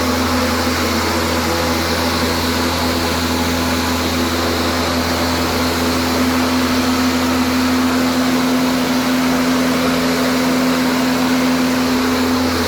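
DeWalt 20V MAX 21.5-inch battery-powered lawn mower running: the electric motor and blade spin with a steady, loud hum.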